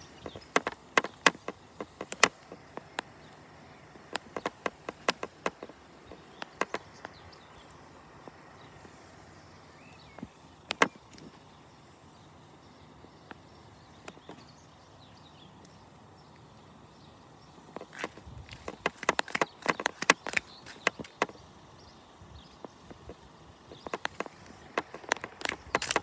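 Footsteps crunching on gravel in short bursts, several times, over a faint steady high-pitched hiss.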